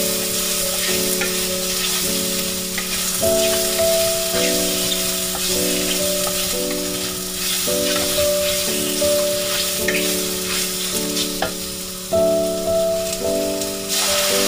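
Vegetables and mushrooms sizzling as they are stir-fried in a stainless steel wok, with light scrapes and taps of a wooden spatula against the pan. Background music of held chords changing about once a second plays throughout, and near the end water is poured into the hot wok.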